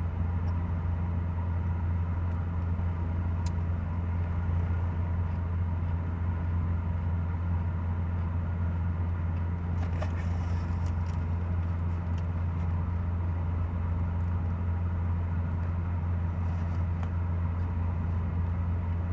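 Steady low hum of an air conditioner running, most likely a car's air conditioning with the engine idling, with a few faint clicks about ten seconds in.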